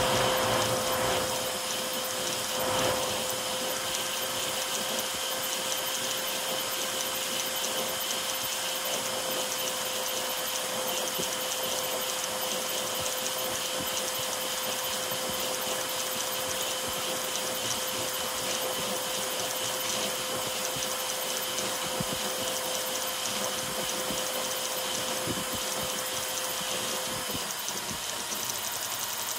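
Ender 5 Pro 3D printer converted to a ZeroG Mercury 1.1 printing a Benchy at high speed. Its stepper motors whir and buzz as the toolhead darts back and forth, over the steady hiss of the part-cooling air and a steady hum that stops near the end.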